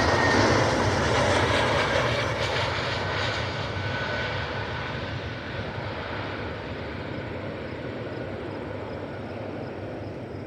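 Jet noise from an Airbus A321neo airliner passing on landing, a broad rushing sound that fades steadily as the aircraft moves away.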